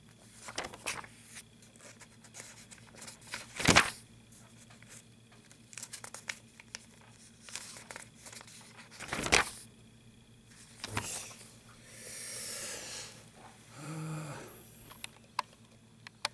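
Paper pages of a workbook being flipped and handled: a string of rustles and crinkles, with two louder page turns about four and nine seconds in.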